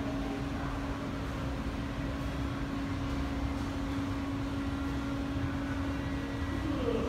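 Steady machine hum, like an air-conditioning or ventilation unit, holding one constant low tone over a low rumble, with a brief faint wavering sound near the end.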